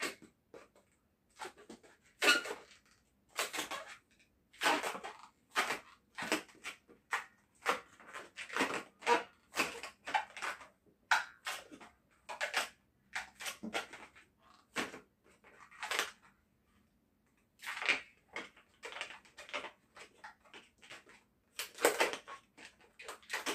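Latex twisting balloons rubbing and squeaking in the hands as they are twisted and worked, in quick, irregular bursts.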